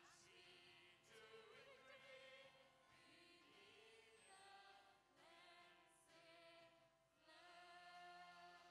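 Worship song sung by a group of male and female singers with band accompaniment, recorded at a low level.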